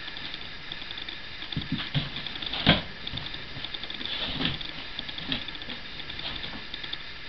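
Dog pawing and rummaging in blankets inside a cardboard box: irregular scratching, rustling and small knocks against the cardboard, with one louder knock a little under three seconds in. It is her nesting routine before lying down to sleep.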